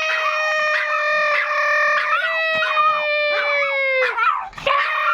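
A man howling like a dog in one long high held note that sags slowly in pitch, breaks off about four seconds in and starts again, while a Pomeranian puts in short howling cries over it.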